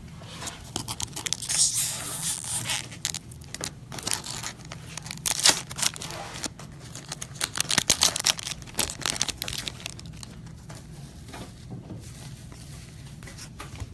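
Trading-card pack wrappers being torn open and crinkled, with cards handled: a run of short, sharp tearing and rustling noises for most of the first ten seconds, then quieter handling.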